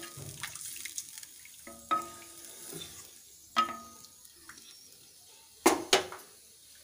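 Spatula stirring thin soup in a wok, the liquid sloshing softly, with a few sharp knocks of the spatula against the pan that ring briefly; the loudest are two knocks close together near the end.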